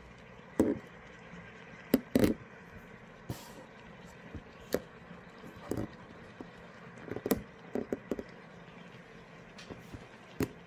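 Self-heating hot pot's heating element working in its water bath under the lid: a steady faint steaming hiss with irregular sharp pops and crackles, the loudest about two seconds in.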